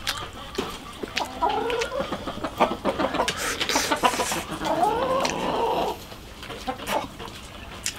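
Chickens clucking, with two longer drawn-out calls about one and a half seconds and five seconds in, over the wet smacking and clicking of someone chewing a mouthful of fish.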